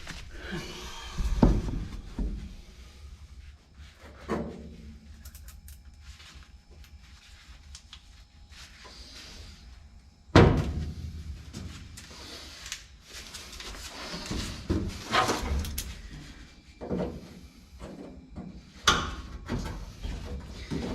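Scattered metallic clunks and knocks of hand tools against a car door while working loose the nut that holds the vent window assembly. The loudest knock comes about ten seconds in.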